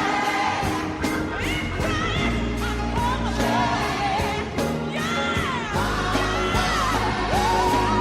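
Gospel praise music: a singing voice holds long notes that slide up and down, over a band with a steady drum beat and bass.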